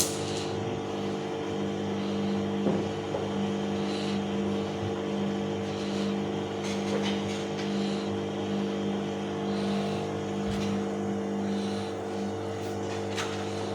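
Bauknecht WAS 1400 washing machine running: a steady motor hum with a regular swell about every two seconds.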